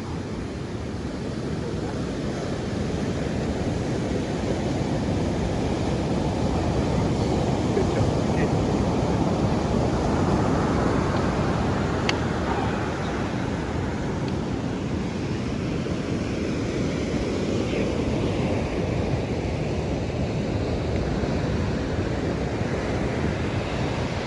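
Ocean surf and wind, with wind buffeting the microphone: a dense, steady rushing that swells over the first ten seconds or so, then eases a little.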